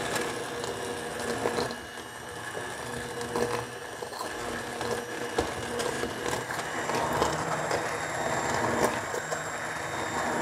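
Immersion blender running steadily in a stainless steel saucepan, puréeing boiled chillies and vinegar into a smooth hot sauce, with a few short clicks along the way.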